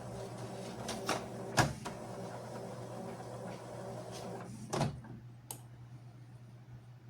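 Epson L3150 inkjet printer's mechanism clicking and knocking a few times over a steady low hum. The hum's higher tones fade about five seconds in.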